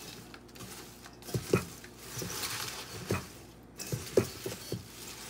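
Hands tossing fresh leafy greens (watercress, spinach and kale) in a large stainless steel bowl: leaves rustling, with irregular soft thumps as the hands plunge in and turn them over.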